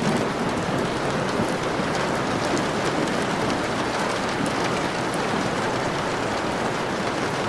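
Steady rain falling, a continuous even hiss with scattered faint ticks of drops.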